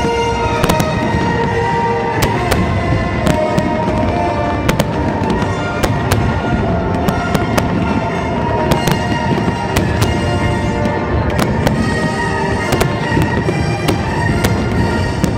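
Fireworks bursting in quick succession, sharp bangs and crackles several times a second at times, over music with sustained notes.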